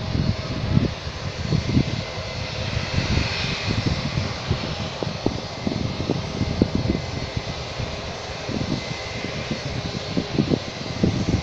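A jet airliner's engines running steadily at a distance, a continuous hiss with a faint steady whine, while wind buffets the microphone in frequent low thumps.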